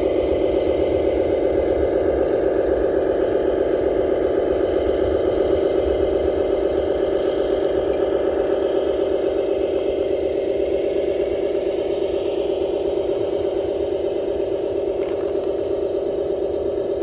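Radio-controlled MAN TGS 8x8 dump truck driving loaded across gravel, its engine sound a steady, mid-pitched drone with a fast pulse, easing slightly as the truck moves away.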